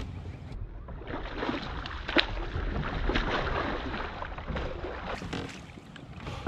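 Water splashing and sloshing around a kayak for about four seconds, with a sharp knock on the boat about two seconds in and a few lighter clicks later.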